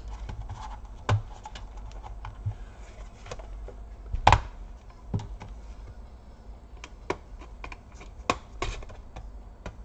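Scattered clicks and knocks of plastic and metal from a Lenovo ThinkPad T430 laptop's opened chassis and palmrest being handled, with one louder knock about four seconds in and a few more clicks near the end as the laptop is tipped over.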